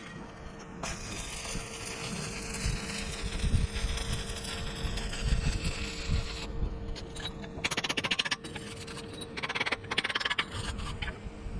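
Electric arc welding on steel: a steady hiss for about five seconds, then two bursts of fast crackling about a second long each.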